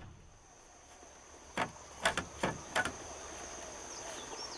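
About five light knocks and clicks, grouped over a second or so, as a level and hammer are handled against the frame of a new-construction window being checked for level. A steady high insect drone runs underneath.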